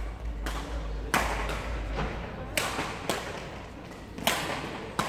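Badminton rackets striking a shuttlecock: a series of sharp cracks about a second apart, echoing in a large sports hall over a steady background din.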